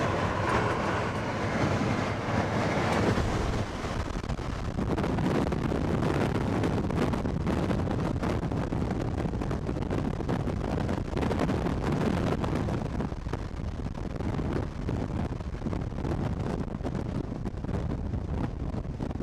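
Strong wind from a nearby tornado blowing hard across the microphone: a continuous rushing noise with constant buffeting, strongest in the first few seconds.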